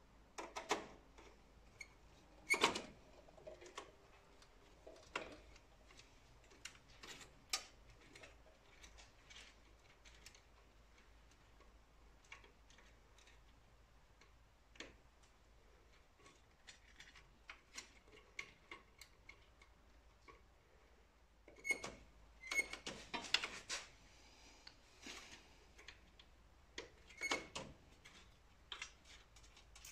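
Irregular small clicks and taps of a screwdriver and fingers working on the scanner parts and wiring of an Océ PlotWave 300 wide-format printer, with a louder click about two and a half seconds in and a quick run of clicks a little past twenty seconds.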